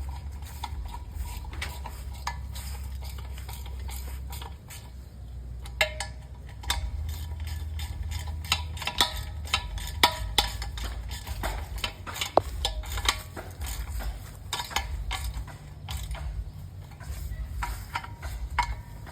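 Scattered sharp clicks and clinks of hard objects being handled, denser from about six seconds in, over a steady low rumble.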